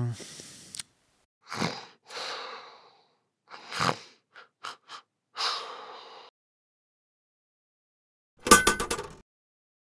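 Dubbed-in snoring and wheezy breathing, a string of separate breaths over the first six seconds. Near the end comes a short, loud rattling clatter of quick clicks.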